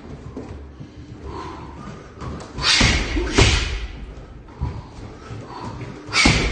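Boxing gloves punching a hanging heavy bag: sharp slaps and thuds, two hard blows in quick succession a little over halfway through and another near the end, with lighter hits between.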